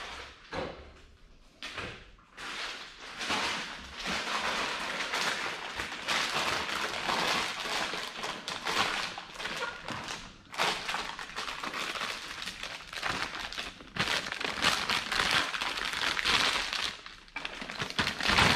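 Plastic bag packaging crinkling and rustling continuously as a coilover is pulled out of its box, after a few quieter handling knocks in the first two seconds.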